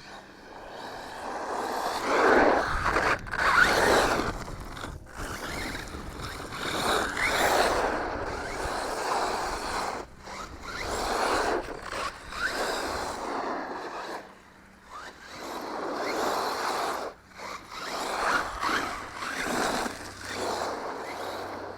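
JLB Racing Cheetah brushless RC truck being driven in repeated bursts of throttle: motor whine and tyres scraping over the ground, swelling and fading every few seconds with short drops in between.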